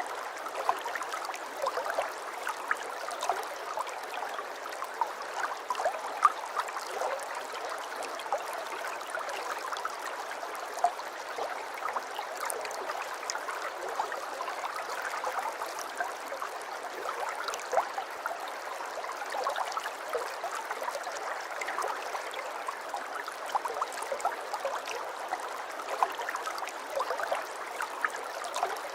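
Aquarium water trickling and gurgling steadily, with many small irregular pops throughout.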